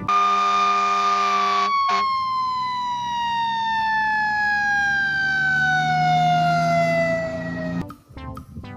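Fire engine siren wailing: one loud tone held steady for a second or so, then falling slowly in pitch for about six seconds and cutting off near the end.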